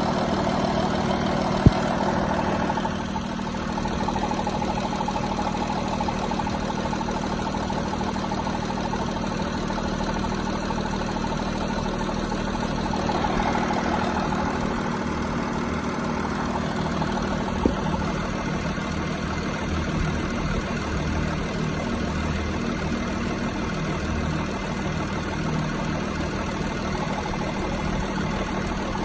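Audi A6 (4G) engine running steadily at idle with a strange noise of unknown cause, a steady hum throughout. Two short sharp clicks stand out, one about two seconds in and one past the middle.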